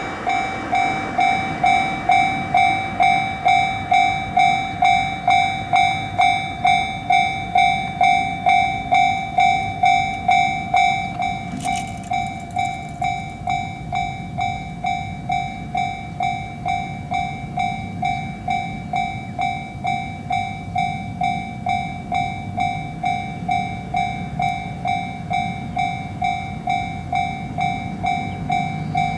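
Japanese level-crossing warning bell sounding its rapid repeating "kan-kan" ding, about one and a half to two strokes a second, a little quieter after about twelve seconds. A train's low rumble runs underneath.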